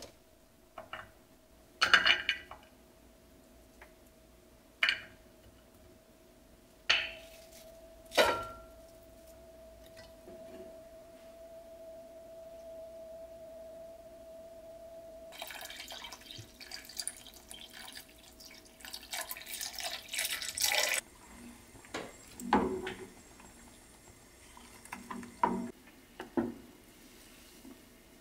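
Pieces of cinnamon bark, ginger and apple slices dropped into a pot with a few separate clunks, then water pouring into the pot for about five seconds, then a wooden spoon knocking against the pot as the contents are stirred.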